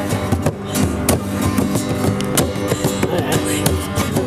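Music playing, continuous and fairly loud.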